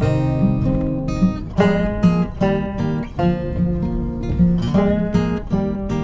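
Music: an acoustic guitar playing a run of plucked notes.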